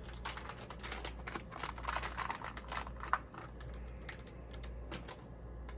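Quick run of small hard clicks and rattles from small parts being handled, with one sharper click about three seconds in, then a few scattered clicks.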